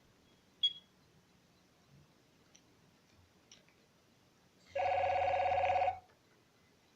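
Nokia 3100 mobile phone: a sharp keypad click with a short high beep, a few faint key clicks, then a ringtone sounding for about a second, a rapidly pulsing two-note trill from the phone's speaker that cuts off suddenly, as a tone is previewed while scrolling the ringtone list.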